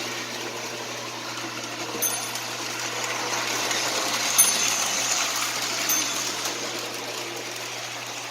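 Lionel 6220 Santa Fe diesel toy train from 1949 running around its track: a steady motor and wheel rumble with a low hum, growing louder toward the middle and easing off again. Its built-in bell dings three times, every couple of seconds.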